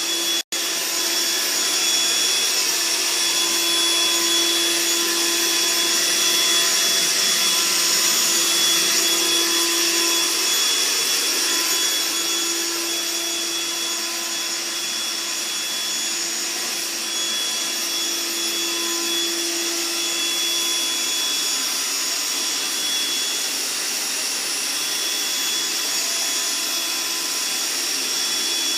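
Vacuum cleaner running continuously: a steady rush of air with a constant motor whine.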